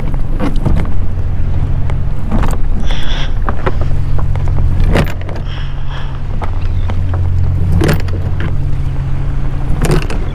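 Boat engine idling with a steady low hum, with scattered short knocks and scrapes as the anchor line is handled at the bow.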